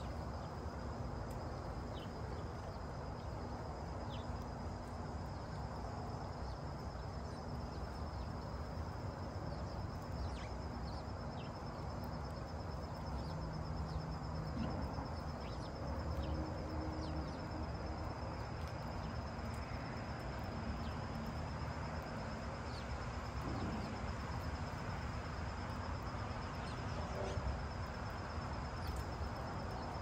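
Steady backyard ambience: a continuous high insect trill, cricket-like, over a low background rumble, with scattered short bird chirps throughout.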